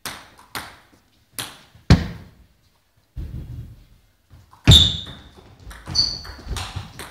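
Table tennis ball striking bats and the table: four sharp ticks in the first two seconds, a pause, then a louder hit with a short ringing ping a little past the middle, followed by a rally of quick ticks about half a second apart.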